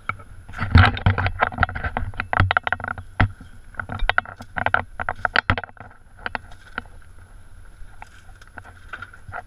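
Knocks and rattles from a Land Rover Discovery jolting along a rough dirt track, picked up by a GoPro mounted on the vehicle, over a steady faint hum. The knocking is dense for the first five seconds or so, then thins out to occasional knocks.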